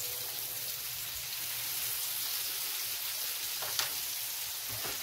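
Food frying in a pan on the stove: a steady sizzle, with one light click a little before four seconds in.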